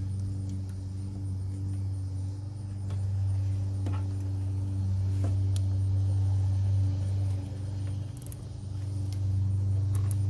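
Steady low hum in the background, with a few faint clicks and ticks as a plastic zip tie is fastened.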